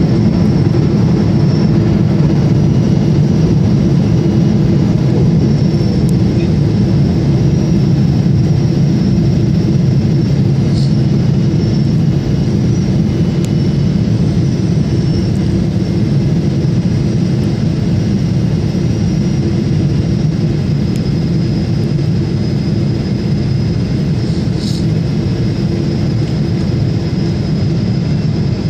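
Boeing 777-300ER's GE90 jet engines and rushing air as heard inside the cabin on final approach: a loud, steady low rumble with a thin high whine above it.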